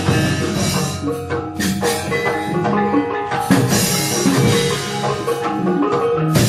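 Javanese gamelan playing: bronze metallophones ring out a run of struck notes over drumming, with sharp knocks now and then.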